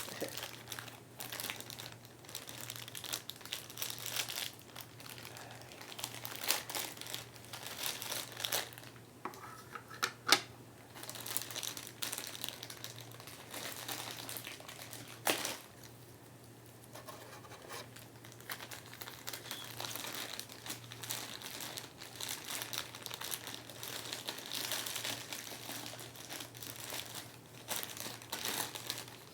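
Crinkling of figurine packaging being handled, with sharp clicks and knocks of the small plastic figure parts being fitted together, the loudest click about ten seconds in. A faint steady low hum runs underneath.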